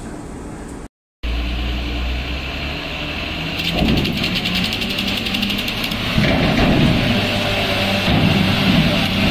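Diesel engine of a heavily loaded cargo truck pulling up a steel loading ramp under load. The sound grows louder and noisier a few seconds in as the truck climbs, then louder again past the middle.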